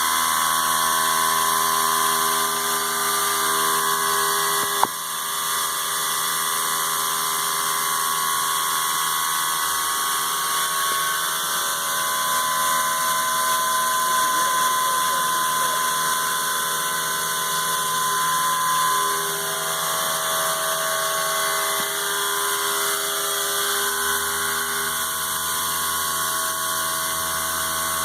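CNC mill spindle driving a Helical Solutions endmill through metal on a Waveform constant-engagement toolpath: a steady whine of several held tones from the cut. There is a sharp click about five seconds in, and the tones shift as the toolpath changes direction around two-thirds of the way through.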